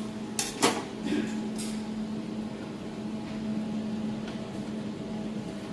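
Desktop jewelry laser welding machine humming steadily with its cooling running, with a few sharp clicks in the first second and a half.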